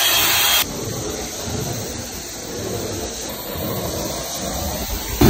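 A cordless drill spinning a scrub brush against carpet, cutting off about half a second in. Then the steady hiss and suction of a carpet-cleaning extraction wand being drawn over the carpet.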